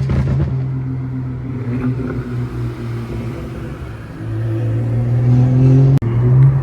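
BMW 335i's turbocharged 3.0-litre inline-six exhaust droning steadily under way, growing louder from about four seconds in, with a sudden brief dropout near six seconds.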